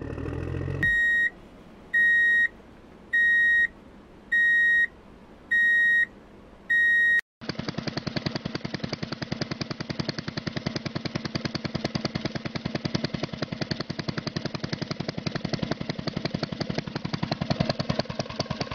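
Six evenly spaced reversing-alarm beeps, one about every second. About seven seconds in they give way to a fast, even chugging engine sound effect for the animated toy combine harvester driving down the ramp.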